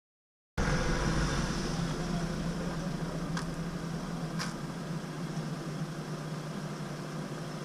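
Silence for about half a second, then a vehicle engine idling steadily with a low hum, easing slightly in level. Two faint short clicks come about three and four and a half seconds in.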